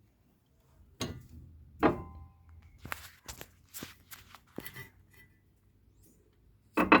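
Knocks and clicks of metal suspension parts being handled and fitted. There is a sharp knock about a second in and a louder one just before two seconds, with a brief ring after it, then a run of lighter clicks.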